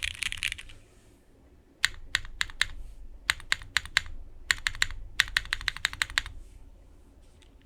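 Typing on a mechanical keyboard with Cherry MX2A Black linear switches, an aluminium plate, no foam and ABS doubleshot keycaps. A fast flurry of keystrokes stops within the first second. After a short pause come a few single spaced strokes, then quick bursts of typing that die away for the last second or so.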